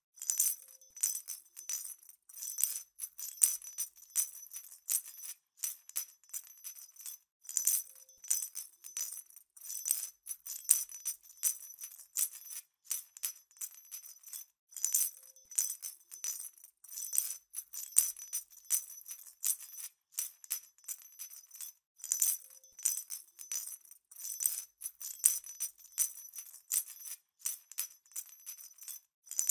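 Small jingle bells shaking in quick, irregular jingles with a high ringing tone, repeating as a loop about every seven seconds.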